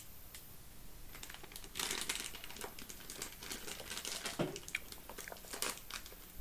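Plastic sweets bag crinkling and rustling as it is handled and opened. The crinkling starts about two seconds in.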